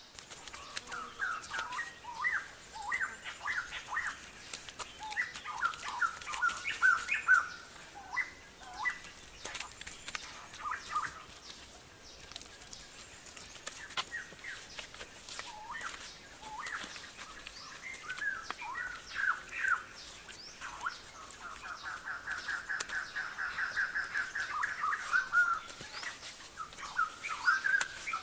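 Birds chirping and singing in short, quick phrases, with a fast trill running for a few seconds about three-quarters of the way through. Faint scattered clicks sound alongside.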